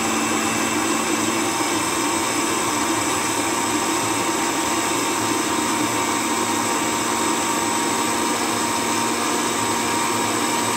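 Electric countertop blender running steadily, blending bread, eggs, vegetables and yogurt into a smooth paste, then cutting off suddenly at the end.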